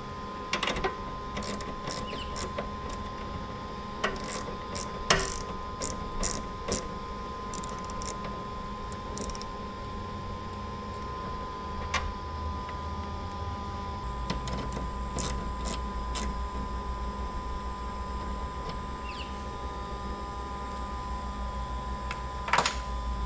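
Scattered sharp clicks and small metallic rattles of cable lugs and terminal hardware being handled and fastened on solar power equipment, busiest in the first ten seconds, with a louder click near the end. A steady high hum runs underneath.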